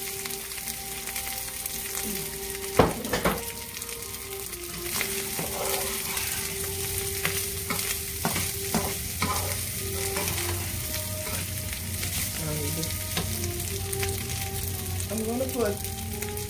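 Day-old rice sizzling in hot oil in a frying pan while a metal slotted spatula stirs and scrapes it, with many light clicks of the spatula on the pan and one sharp knock a little under three seconds in.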